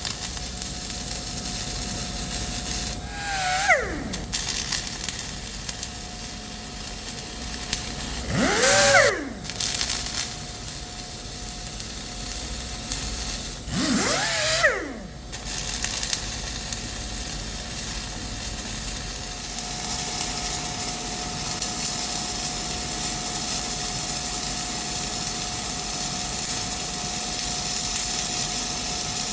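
Gas-shielded flux-cored wire welding: a steady arc sizzle that grows fuller and more even about two-thirds of the way in. A thin steady tone runs under it, and three short whines rise and fall in pitch in the first half.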